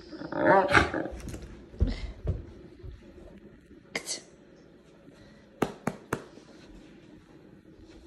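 Central Asian Shepherd dog giving a loud, wavering growl lasting about a second as it plays. This is followed by a couple of low thumps and, later, three quick sharp clicks.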